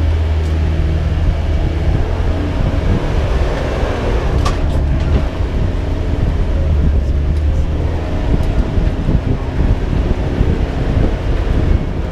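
Tourist road train driving along, heard from aboard: a steady low engine hum with uneven ride rumble, and a brief sharp squeak about four and a half seconds in.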